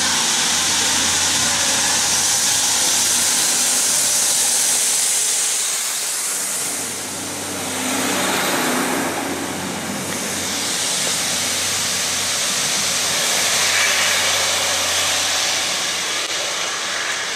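Class 156 diesel multiple unit pulling away and passing close by, its diesel engine running under a steady hiss.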